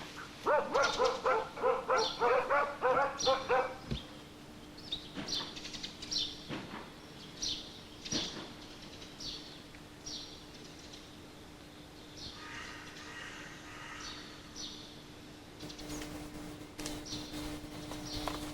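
Hunting dog barking in a quick run of about three barks a second for the first few seconds, then small birds calling with short, high, falling chirps over a faint steady hum.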